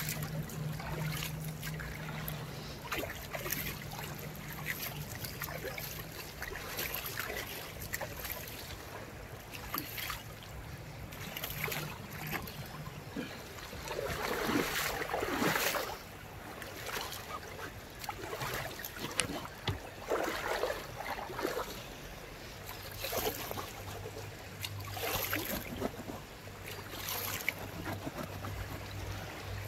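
Shallow stream running and trickling over gravel and stones, with a small cascade upstream; the water noise swells louder at a few moments.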